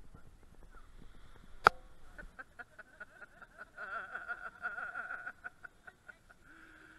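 A single sharp click about a second and a half in, then faint chatter and laughter from a small group of people.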